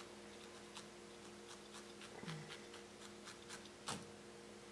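Faint, irregular scratchy pokes of a barbed felting needle stabbing into wool over a felting pad, with a sharper tick near the end. A steady faint hum runs underneath.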